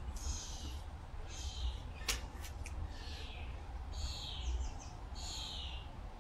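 Quick, heavy breaths, one short rushing breath about every second, from a man exerting himself through burpees and squats. A single sharp click comes about two seconds in.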